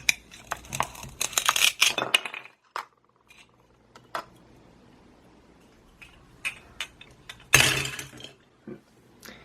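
Hard plastic toy food pieces clacking against a plastic knife and cutting board, a rapid run of clicks for about two seconds, then a few scattered taps. About seven and a half seconds in comes a short rasping rip: the Velcro join of the toy pomegranate tearing apart as it is cut.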